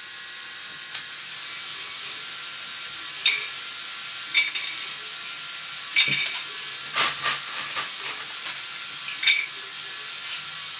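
LEGO Technic 42055 bucket wheel excavator's Power Functions motors running the conveyor belts and bucket wheel: a steady whirring hiss of motor and plastic gear noise, with sharp clicks every second or two and a quick run of clacks about seven seconds in.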